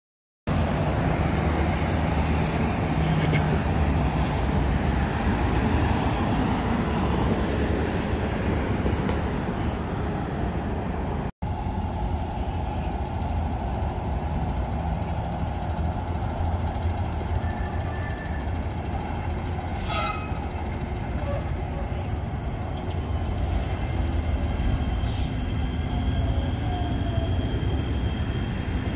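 Transit station noise: a city bus's engine runs in the first half, with a couple of short sharp sounds later. Toward the end, a light-rail train on the elevated track adds a thin high steady whine.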